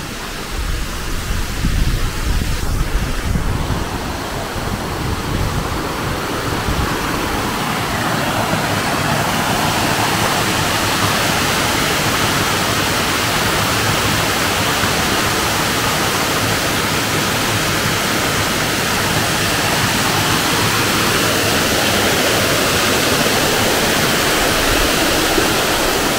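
Waterfall rushing: a loud, steady hiss of falling water that grows fuller about eight seconds in.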